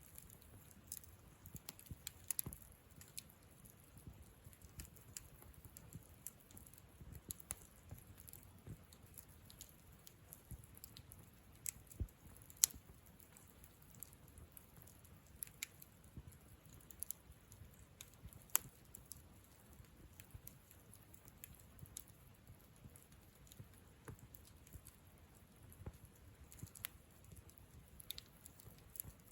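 Wood campfire crackling: scattered, irregular sharp pops and snaps over a faint low rumble of the burning fire, with one louder pop about twelve seconds in.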